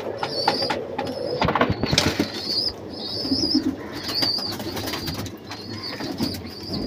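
Domestic pigeons in a loft: wing flaps and scuffling, a low coo about three seconds in, and short high chirps repeated throughout.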